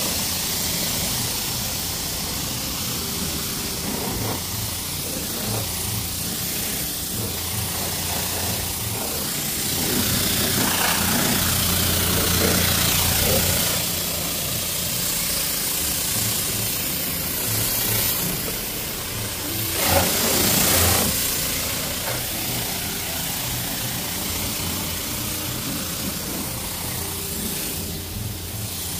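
A self-service car wash's high-pressure spray wand hissing as water is sprayed onto a car, over a steady low hum. The spray grows louder for a few seconds about ten seconds in and again about twenty seconds in.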